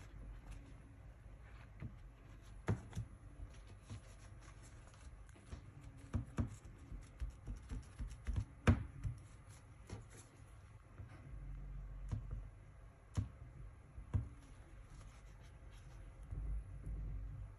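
Hands wiping a phone screen with a cloth and pressing on it with a pad: soft rubbing and handling noise with scattered light taps and knocks, the loudest about nine seconds in.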